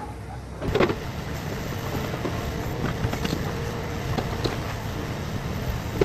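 Grab lorry's diesel engine running while its hydraulic crane grab loads rubble from skips, with a steady mechanical whine and a few knocks, the loudest about a second in.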